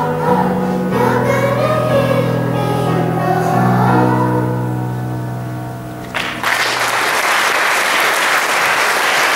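Children's choir singing the last long notes of a song, fading away. About six seconds in, audience applause breaks out suddenly and carries on.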